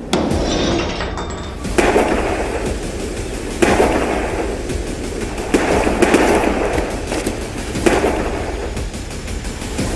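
Film-trailer soundtrack: a steady low musical drone under four loud, noisy impact hits about two seconds apart, each cutting in sharply and then trailing off.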